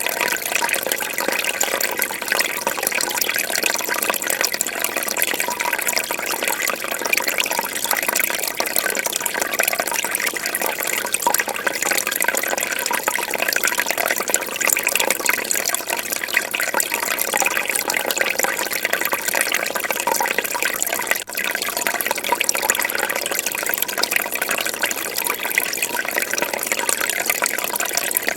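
Fish tank water bubbling and splashing steadily.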